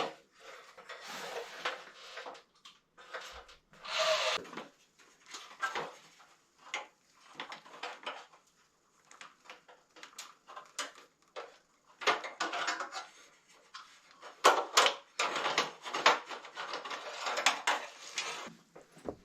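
Irregular knocks, rubs and scrapes of wood and tools being handled and moved about.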